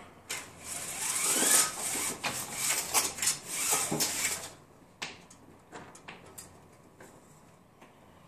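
A mail package being torn open: about four seconds of rustling and tearing packaging with some short screechy streaks, then a few light handling clicks and taps.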